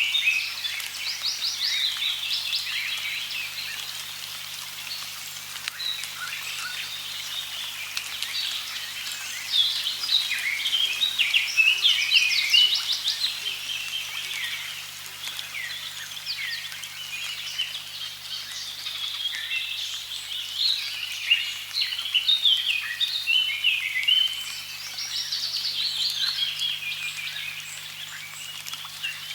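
Many small birds singing at once, with overlapping chirps and fast trills and a faint steady low hum beneath.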